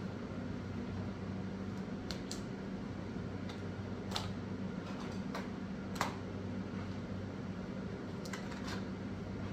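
Scattered light clicks and taps of small objects being handled, about six in all, the sharpest about six seconds in, over a steady low hum.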